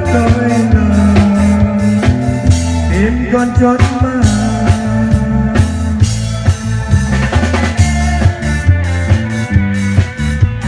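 Church band playing a worship song with drum kit, bass and other instruments, with a steady beat.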